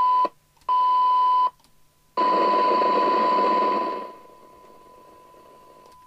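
Steady 1 kHz test tone from a Midland 77-810 CB radio's speaker, received from the test set's signal generator for a SINAD measurement. It comes in three loud bursts, the third with hiss, then drops to a faint steady tone about four seconds in.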